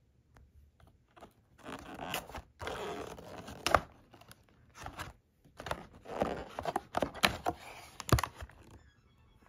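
Handling of a McDonald's paper takeout bag and cardboard breakfast box: uneven bursts of paper rustling and scraping with a few sharp taps. It starts about a second and a half in and stops shortly before the end.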